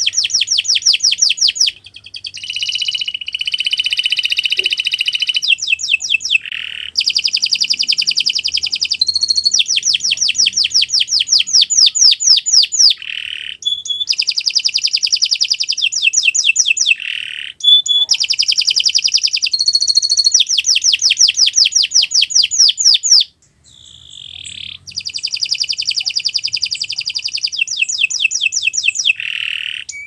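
Domestic canary singing a long, nearly unbroken song of fast trills, one run of rapidly repeated notes after another, with a short pause about three-quarters of the way through.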